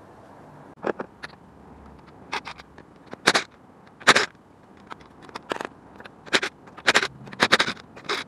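Irregular sharp clatters, knocks and scrapes of hand tools and parts being handled to take the wheel off a van. The first comes about a second in, the loudest around the middle and again near the end.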